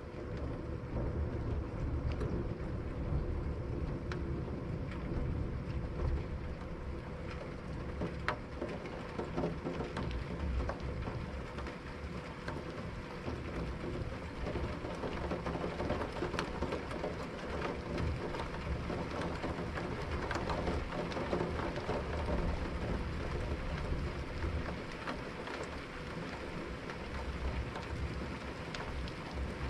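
Steady rain falling, with many close drops pattering sharply, over a low rumble of distant thunder that swells and fades. A faint steady hum runs underneath.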